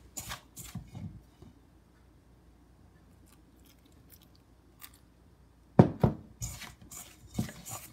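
Chopsticks stirring flour and water in a stainless steel mixing bowl, scraping and clicking against the bowl. It goes quiet for a few seconds in the middle, then a sharp knock about six seconds in, the loudest sound, is followed by more clattering.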